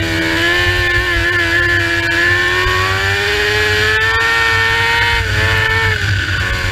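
Mini sprint car engine running hard, heard from the cockpit, its pitch climbing slowly along the straight and then dropping about five seconds in as the revs come down, over a low rumble.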